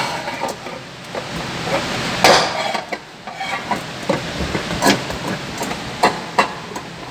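Steel pry bar knocking and scraping against the washing machine's sheet-metal bearing mount as it is levered to force the part off. Irregular metallic clanks and scrapes, the loudest a little over two seconds in.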